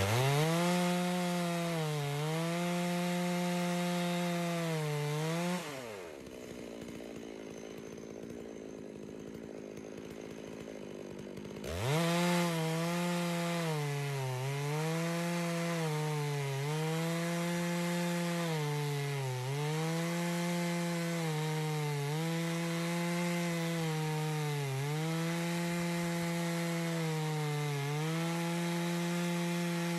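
Farmertec G660 92cc two-stroke chainsaw at full throttle in a chainsaw mill, ripping a thick cherry slab lengthwise. Its engine pitch dips and recovers every two seconds or so under the cutting load. About five and a half seconds in it drops to idle, then about twelve seconds in it revs back up and carries on cutting.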